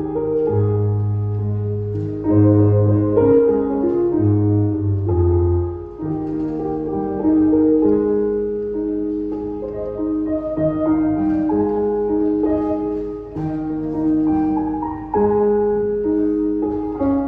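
Electronic keyboard playing the hymn tune in sustained chords. The low bass notes drop out about six seconds in, and the upper chords carry on.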